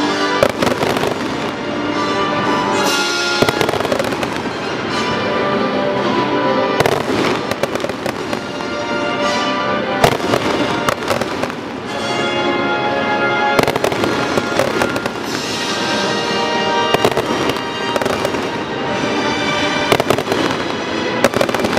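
Aerial fireworks shells bursting again and again, sharp bangs scattered through the whole stretch, over loud orchestral music.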